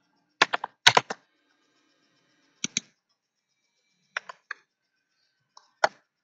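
Computer keyboard keys clicking in short clusters of two or three presses with pauses between, typing while editing code.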